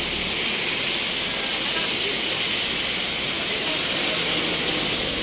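Heavy rain falling steadily on a paved street, a constant hiss without a break.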